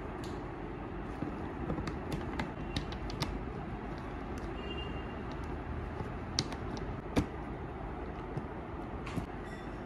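Small sharp clicks and taps from hands and a screwdriver working at the screws of a trolley suitcase's pull-handle mounting, scattered irregularly with the loudest about seven seconds in, over a steady background rumble.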